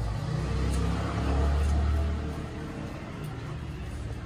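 A motor vehicle passing by: a low engine rumble that swells to its loudest between about one and two seconds in, then fades.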